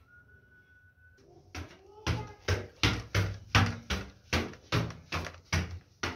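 Quick footsteps, about two and a half steps a second, starting about two seconds in: a person walking briskly while carrying the camera.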